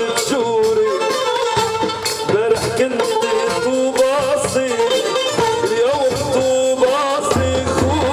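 Middle Eastern music with a man singing an ornamented, wavering melody into a microphone. A low bass note comes in near the end.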